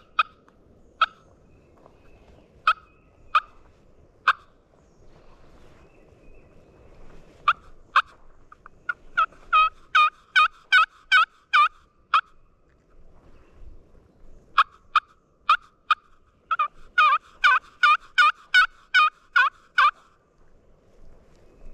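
Hen turkey calling on a hunter's turkey call, used to strike up a gobbler: a few single sharp clucks, then two runs of rapid yelps at about three notes a second, loud and close.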